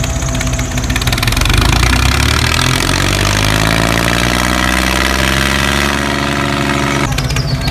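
Small motor running steadily with a low hum. From about a second in, a second motor note rises steadily in pitch, then cuts off abruptly about seven seconds in.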